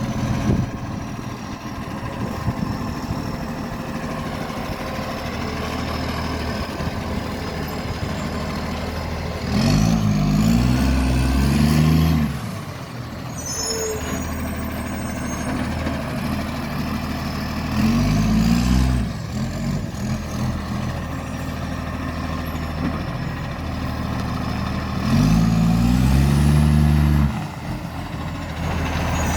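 Garbage truck's diesel engine idling, then revving up three times for a second or two each, running with a very bad exhaust leak.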